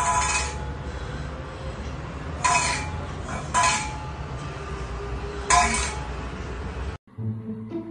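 Metal pet food bowl clinking as a cat bats and taps it with its paw, four ringing strikes a second or two apart over a steady low hum.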